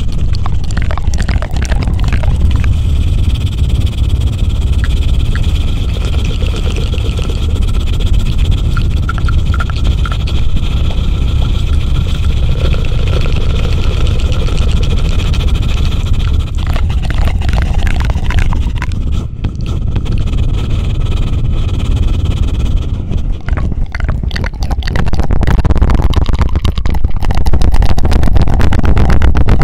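Close-miked ASMR 'helicopter' trigger: a loud, low, fast fluttering rumble worked directly on the microphone, growing louder near the end.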